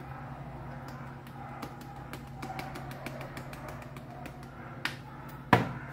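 Black pepper being shaken from a plastic shaker over raw steak in a metal tray: faint scattered ticks over a steady low hum. Near the end come a small knock and then a sharp, louder knock as the container is set down on the stainless steel counter.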